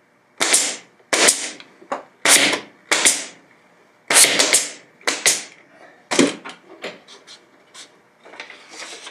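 A brad nailer firing small brads into MDF to tack glued shim strips in place: a rapid series of sharp shots, about one every half second to a second, with a few lighter clicks near the end.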